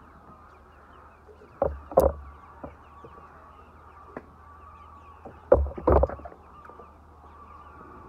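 A large flock of white laying hens clucking and chattering in a steady murmur, broken by two loud, sudden noises with a low rumble, about one and a half seconds in and again about five and a half seconds in.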